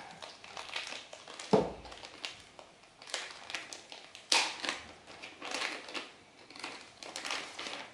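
Thin plastic bag crinkling and rustling in irregular bursts as a remote control is unwrapped from it, with a dull knock about one and a half seconds in.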